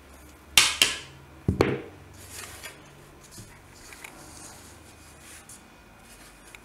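Two sharp knocks on an aluminium mixing pan, about a second apart, the first with a short metallic ring, followed by faint rustling and squishing of hands working a floury salt dough in the pan.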